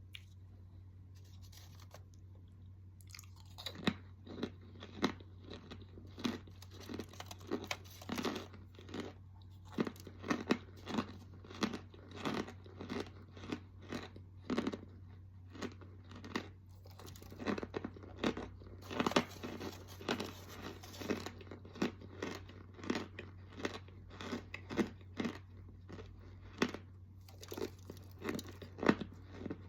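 A person chewing a crunchy snack, with loud, close crunches coming roughly one or two a second from about three and a half seconds in.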